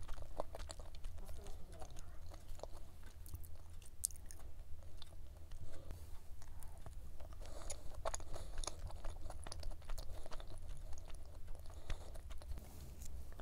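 Close-up mouth chewing of a flaky laminated cube pie, with a steady stream of small soft crackles from the pastry layers.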